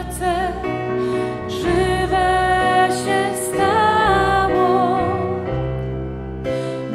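Slow worship song: sung melody with wavering, held notes over instrumental accompaniment with sustained bass notes.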